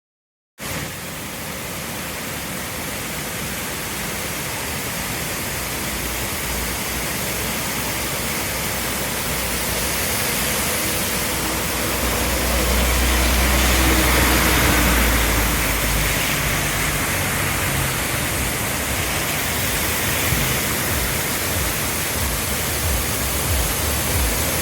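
Heavy forest rain pouring down: a loud, steady hiss that starts abruptly and slowly grows louder, with a deep low rumble swelling up briefly around the middle.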